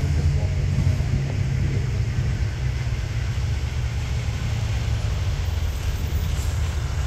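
Low, steady rumble of a Boeing 737 MAX 8's CFM LEAP-1B jet engines at low power as the airliner taxis.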